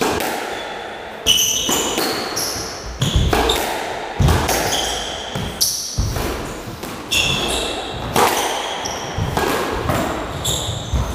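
Squash rally: the ball cracking off rackets and the court walls about once a second, with short shoe squeaks on the wooden floor, all ringing in the enclosed court.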